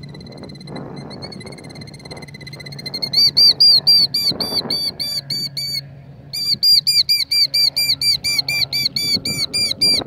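Killdeer giving its alarm calls during a broken-wing distraction display near its nest: a long high trill, then rapid repeated high calls, about four a second, with a brief break in the middle.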